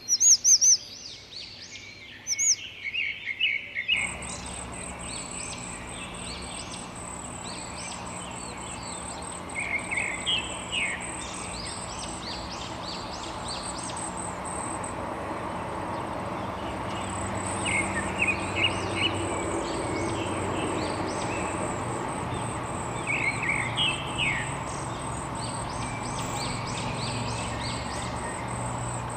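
Songbirds chirping and calling, loud and close in the first few seconds, then an abrupt change about four seconds in to a busier chorus of many birds over a steady high insect drone and outdoor background noise.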